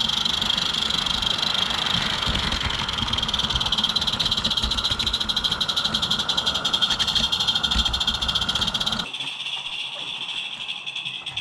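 Small live-steam garden-railway locomotive running, heard up close on the moving engine: a steady rumble and rattle of wheels on the track with a continuous high hiss. About nine seconds in the sound drops abruptly to a quieter, distant hiss with light clicks as the engine is heard from further off.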